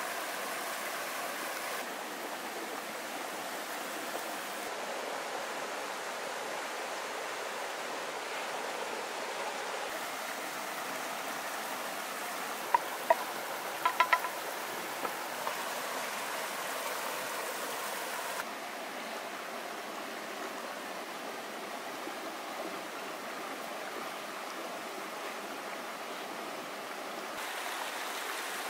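Steady rush of a river's flowing water, with a few sharp metallic clinks about halfway through.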